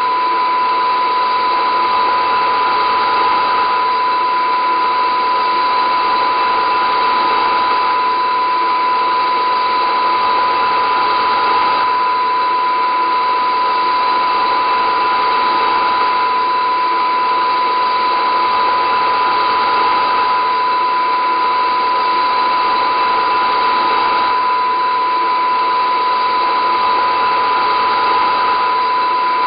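A steady, unchanging drone: a dense, hiss-like band of noise with one clear, high, steady tone standing out above it.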